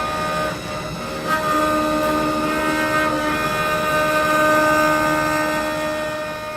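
Lathe running, a steady multi-tone machine whine over a rough mechanical hum, fading away near the end.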